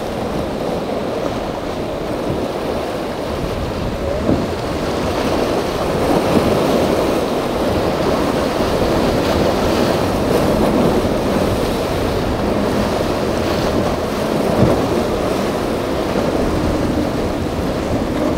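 Steady rush of choppy inlet water and wind buffeting the microphone, with a Dusky center console's single Evinrude 250 outboard running underneath as the boat passes. A couple of brief thumps, about four seconds in and again near fifteen seconds.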